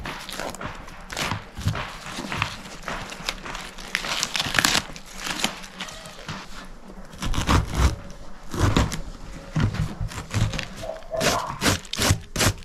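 Crisp crackling and tearing as the outer leaves are pulled off a head of white cabbage, with a few dull knocks partway through. Near the end, a hand-held cabbage shredder starts rasping across the head, dropping shreds onto a wooden board.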